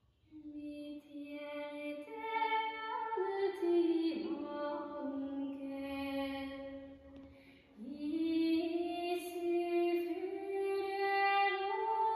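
A recording of a woman singing slow, held notes that step up and down in pitch, with a short break for breath about halfway through, played back through a DeVry Type-D tube amplifier and large horn loudspeakers.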